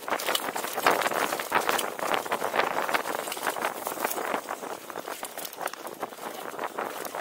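Mountain bike rattling at speed over a rough dirt trail: tyres running on dirt under a dense, irregular run of clicks and knocks from the bike.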